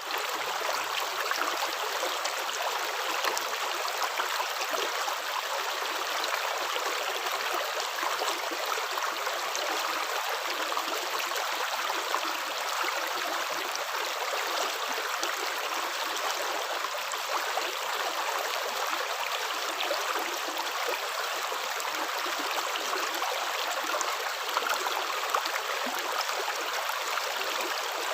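Running water: a stream flowing steadily with an even rushing and trickling sound that neither builds nor fades.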